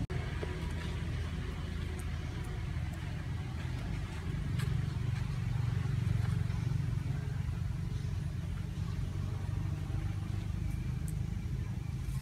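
Low steady rumble, louder from about four and a half to seven seconds in, with a few faint clicks.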